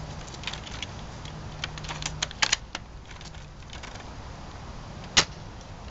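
UTG MK96 spring-powered airsoft bolt-action sniper rifle: a quick run of metallic clicks as the bolt is worked about two and a half seconds in, then one sharp shot about five seconds in.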